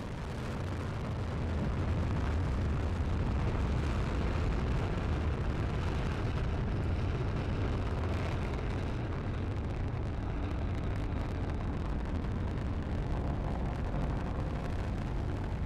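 Falcon 9 rocket's nine Merlin first-stage engines at full thrust during liftoff and climb-out: a deep, steady roar of rocket exhaust that grows louder over the first two seconds and then holds steady.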